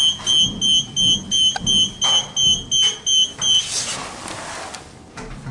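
A passenger lift's electronic beeper sounding a rapid train of short, high, identical beeps, about three a second, stopping a little over halfway through, followed by a brief rushing noise.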